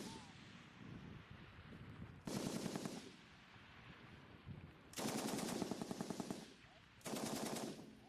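M60 7.62 mm machine gun firing three short bursts of automatic fire, each about a second long, with pauses of one to two seconds between them.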